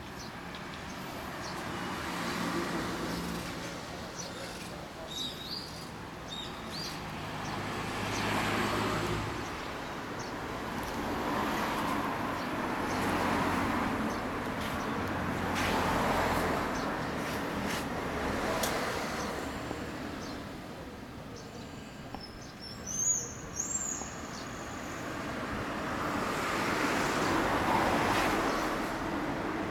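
Road traffic: vehicles passing one after another, the noise swelling and fading every few seconds. A few short bird chirps come through, the loudest about two-thirds of the way in.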